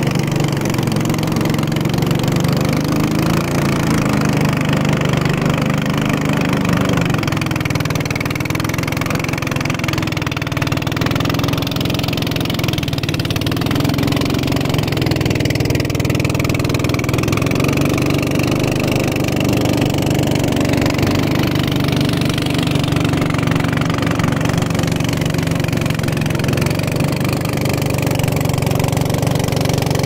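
A small open boat's engine running steadily under way: a constant low drone whose pitch wavers slightly.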